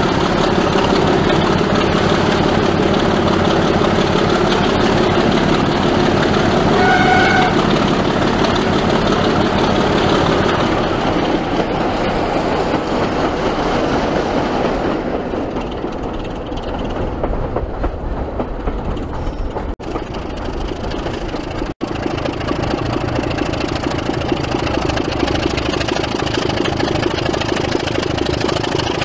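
A diesel locomotive running steadily, with a brief high note about seven seconds in. The sound changes abruptly at sharp cuts around twenty and twenty-two seconds.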